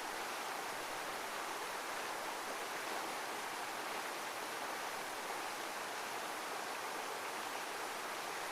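Heavy waterfall of running water, rushing steadily with no swells or breaks.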